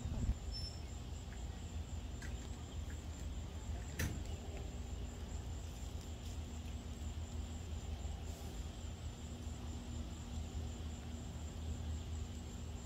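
Outdoor ambience: a steady, finely pulsing high insect trill over a low rumble on the microphone, with one sharp tick about four seconds in.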